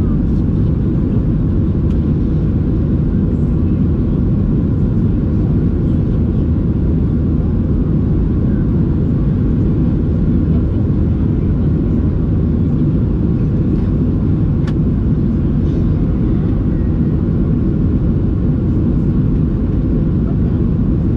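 Steady low cabin noise inside a Boeing 737-700: its CFM56 jet engines and the airflow running evenly, with one faint click about two-thirds of the way through.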